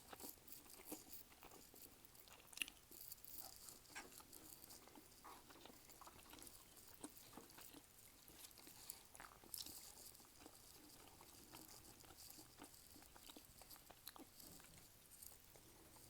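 Faint chewing and eating sounds, with scattered small clicks and one sharper click about two and a half seconds in.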